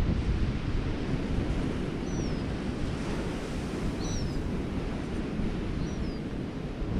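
Surf breaking and wind buffeting the microphone, a steady rumbling noise. A bird gives a short, high, downward-sliding whistle three times, about two seconds apart.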